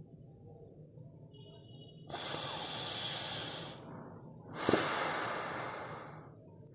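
A man draws two long, hissing breaths through his nose, one about two seconds in and a second a couple of seconds later.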